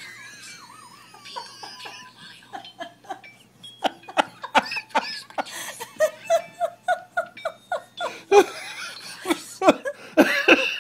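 People laughing, starting as quiet giggles and breaking into louder rhythmic bursts of laughter in the second half.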